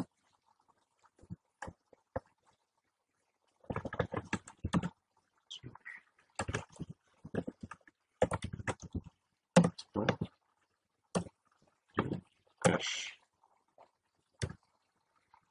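Computer keyboard typing: irregular keystroke clicks coming in short flurries with pauses between.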